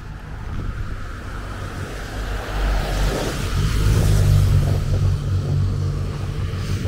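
A motor vehicle's engine rumbling close by on the street, growing louder over the first few seconds and then holding strong.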